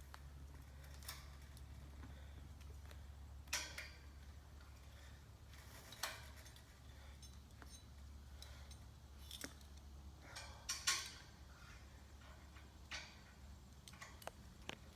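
Faint, irregular metallic clinks and taps of climbing hardware against a steel antenna tower as a climber moves on it, a dozen or so spread out, over a low steady hum.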